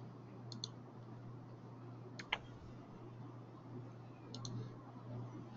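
Quiet pause with a steady low hum, broken by a few faint, sharp clicks, several coming in quick pairs.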